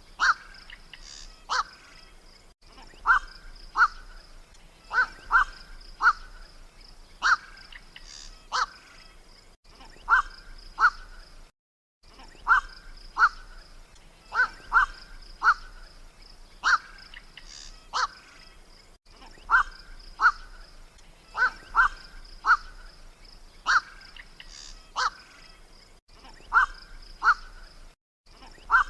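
Recorded calls of a black-crowned night heron (burung koak), played as a hunting lure. Short calls come in pairs and threes every second or two, with a few brief dropouts where the recording is spliced or looped.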